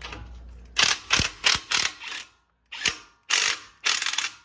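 Ratchet wrench clicking in a series of short bursts of strokes, turning a nut onto the shock absorber's mounting stud.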